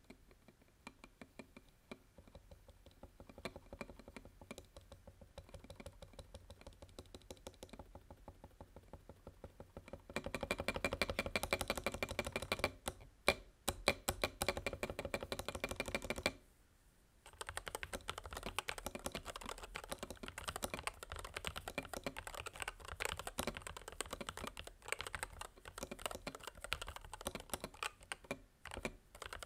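Typing on a MelGeek Cyber01 keyboard with lubed Gateron Magnetic White linear magnetic switches: a steady run of keystrokes, softer at first and then faster and louder about a third of the way in, with a few louder single strikes and a brief pause just past halfway.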